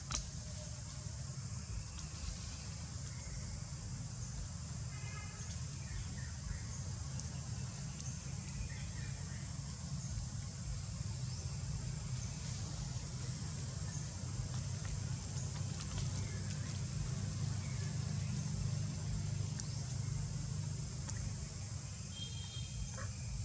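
Outdoor ambience: a steady low rumble and a steady high hiss, with a brief pitched call about five seconds in and another near the end.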